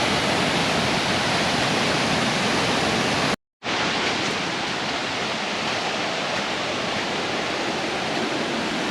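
Waterfall rushing: a steady, even noise of falling water. It cuts out to silence for a split second about three and a half seconds in.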